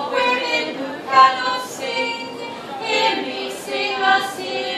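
Women's voices singing a cappella, several overlapping lines with no instruments, with short hissed sounds here and there.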